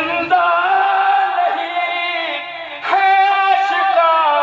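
A man chanting a qasida, an Urdu devotional poem, into a microphone in long held, wavering melodic notes, with a short break for breath about two and a half seconds in.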